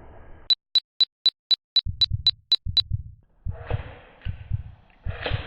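A quick run of ten short, high electronic beeps, about four a second, followed by a series of dull low thumps over a background hiss.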